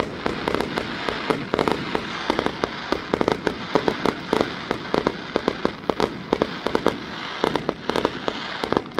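Aerial fireworks bursting in rapid succession: a dense run of sharp bangs over a continuous crackle.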